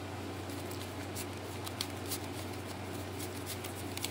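Room tone: a steady low hum with scattered faint ticks and clicks.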